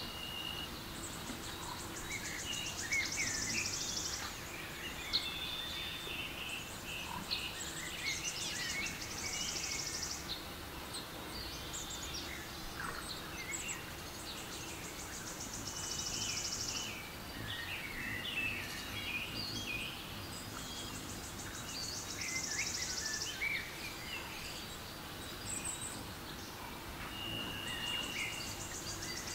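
Forest-and-birdsong soundscape from a relaxation app: birds chirp and whistle in no set pattern, and a high buzzing trill returns every six seconds or so.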